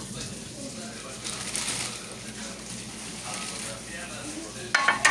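Nonstick frying pan set down onto another pan: a short, loud metallic clank near the end, over faint room noise.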